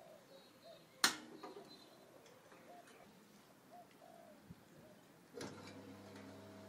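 A sharp metallic clunk about a second in as the cement mixer's drum locks into position, with doves cooing in the background. Near the end the mixer's electric motor switches on and runs with a steady, very quiet hum.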